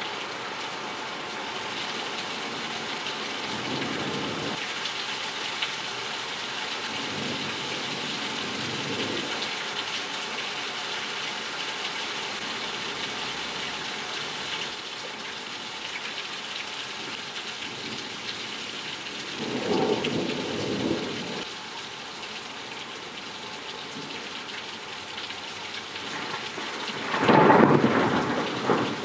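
Heavy rain falling steadily, with several rolls of thunder rumbling through it; the loudest clap of thunder comes near the end.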